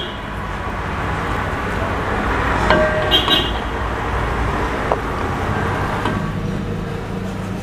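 A long steel serving spoon scraping and knocking a few times against a large metal pot as cooked rice is scooped out, over a steady rushing noise.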